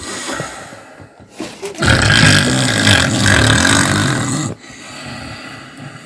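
A man snoring loudly: one long, rough snore starting about two seconds in and lasting between two and three seconds, with quieter sound before and after it.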